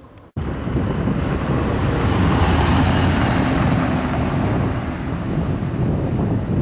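Wind buffeting the camera's microphone: a loud, steady rush, heaviest in the low end, that cuts in suddenly about a third of a second in.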